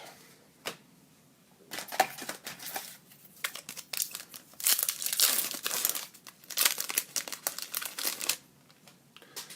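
Wrapper of a trading card pack crinkling and tearing as it is ripped open by hand, in several crackly bouts over about seven seconds.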